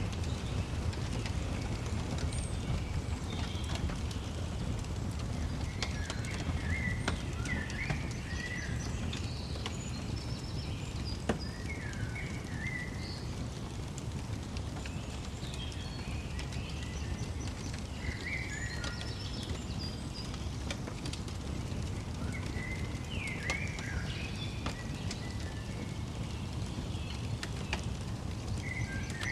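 Fireplace fire crackling, with scattered sharp pops over a steady low rumble, while small birds sing short chirping phrases every few seconds.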